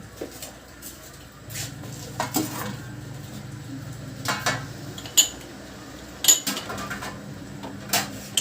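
A utensil knocking and clinking against a cooking pot, five or so sharp knocks spread out, over a low steady hum.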